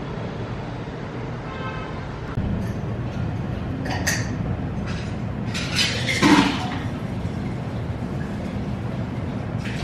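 Café background: a steady low rumble with brief clinks and knocks of glassware and dishes, about four seconds in and again, louder, around six seconds in.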